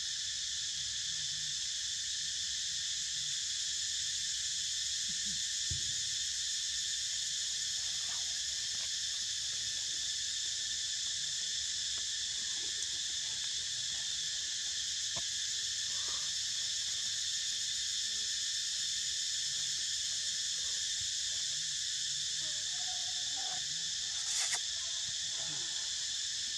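Steady chorus of insects: a continuous high-pitched drone at an even level, with a few faint small rustles and one brief click near the end.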